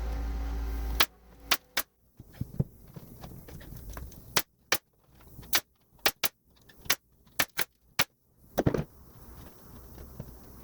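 A series of about a dozen sharp, short clicks or snaps at irregular spacing, with a slightly longer, deeper knock near the end.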